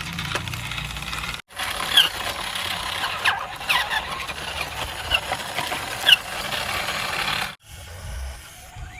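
Small electric motors and plastic gearing of toy RC construction vehicles whirring, with several short squeaks; the sound breaks off abruptly twice.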